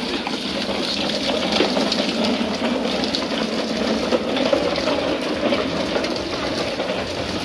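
Hard plastic wheels of children's ride-on toy cars rolling over concrete paving tiles, a steady rough rolling noise.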